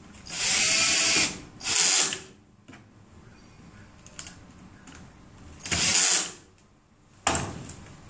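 Cordless drill/driver running in three short bursts, driving screws into the clamps of a screw-type terminal block, about a second or less each. Near the end comes one sharp knock.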